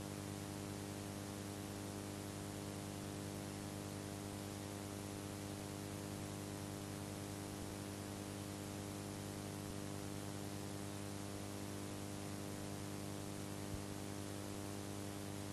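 Steady electrical mains hum with many overtones under a layer of hiss. No other sound stands out.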